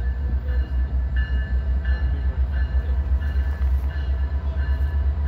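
Canadian Pacific GP20C-ECO diesel locomotive running with a heavy low rumble as it approaches. A ringing tone repeats about every three-quarters of a second, in the manner of a locomotive or crossing bell.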